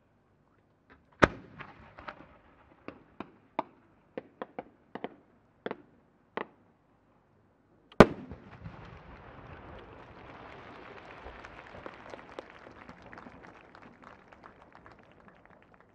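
Ten-inch (shakudama) aerial firework shell: a sharp report about a second in, a scatter of smaller pops over the next few seconds, then the loud main burst about eight seconds in. The burst is followed by a long dense crackle that fades away near the end.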